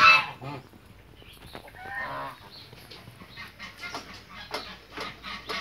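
A goose honk cuts off at the very start, then chickens cluck quietly in short, scattered notes, with one longer call about two seconds in.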